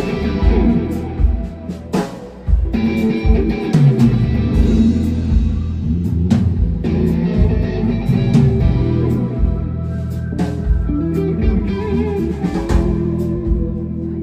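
Live rock band playing, an electric guitar to the fore over a drum kit and keyboard.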